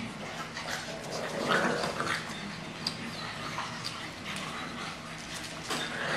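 English bulldog puppies making small play noises as they tussle over toys, the loudest about one and a half seconds in, with scattered short clicks and knocks.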